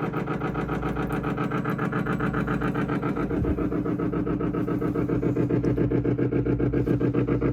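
Hot-water pipe vibrating hard, a steady humming buzz with a fast, even pulse. Water flowing out of a cold-side outdoor hose bib sets it off, and relieving the pressure on the hot side stops it.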